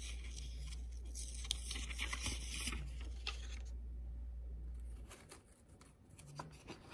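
Quiet pause with a steady low hum that stops about five seconds in, over faint rustling and ticks of a hardcover picture book's paper pages being handled; a hand takes hold of a page to turn it near the end.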